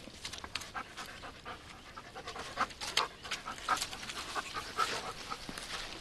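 A dog panting in quick, irregular breaths.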